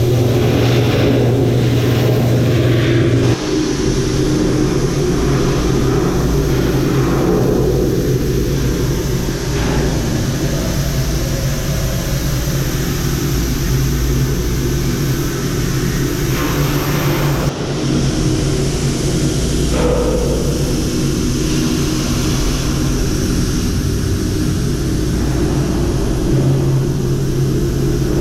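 A loud, steady, engine-like hum with a rushing noise over it, shifting abruptly about three seconds in and again about halfway through.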